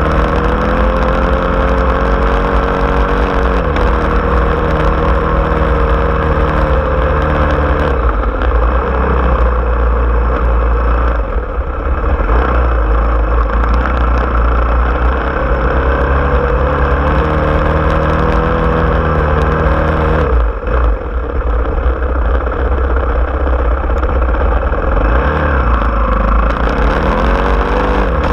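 Small vehicle's engine running while driving, its pitch dropping and climbing again several times as the throttle eases and opens, over a constant low rumble.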